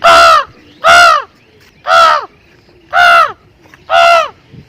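A man imitating a crow with his voice: five harsh caws about a second apart, each falling in pitch.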